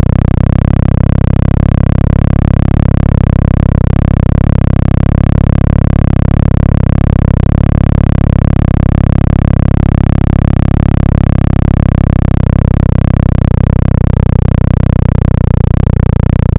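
Mitsubishi Lancer 10 cabin buffeting from an open rear window at speed: a loud, steady, rapid low throbbing pressure pulse. It is Helmholtz resonance of the car's interior excited by the airflow over the open window.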